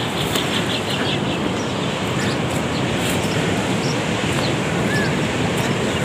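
Steady rushing wind noise on the microphone, with a quick run of high bird chirps in the first second and a couple of short chirps later on.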